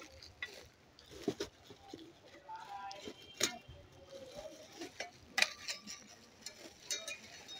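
Plastic-sleeved stainless steel ladles and spoons being rummaged through in cardboard boxes: scattered clinks of metal against metal and rustling plastic wrap, a sharp clink every second or two.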